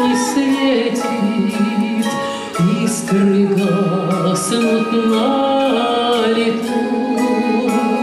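A woman singing a Russian romance, accompanied by a Russian folk-instrument orchestra of plucked domras and balalaikas.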